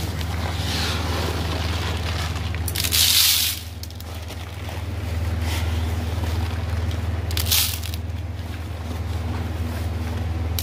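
Rustling and scraping as woven plastic sacks are handled and dry seeds end up on a woven bamboo winnowing tray, over a steady low hum. There is a short loud rush of noise about three seconds in and a smaller one about seven seconds in.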